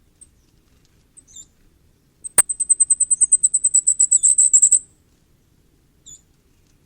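Common firecrest singing: a rapid run of very high, thin notes, about ten a second, lasting about two and a half seconds and growing louder toward the end. A sharp click comes as the song begins, and a few single high call notes come before and after it.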